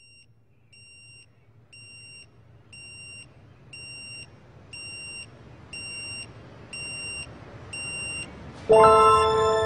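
Electronic alarm beeping, one high half-second beep about every second, growing steadily louder. Loud music with held chords comes in near the end.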